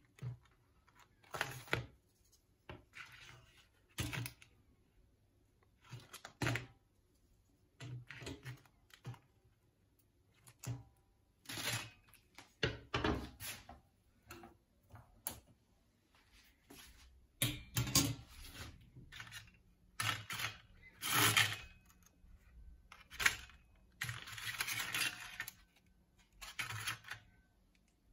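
Irregular clicks and knocks of kitchen handling around a glass-ceramic hob, from wooden tongs, a wire roasting rack and the cooker's control knobs, with a longer rustle near the end.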